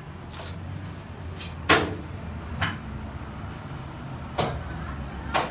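A cleaver and pieces of lamb knocking on a wooden log chopping block: five irregular sharp strikes, the loudest a little under 2 seconds in, over a steady low hum.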